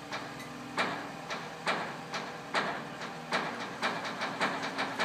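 Crane lifting a sailboat: a steady engine hum under repeated clanks, each with a short hiss, about one a second at first and coming quicker, about three a second, in the second half.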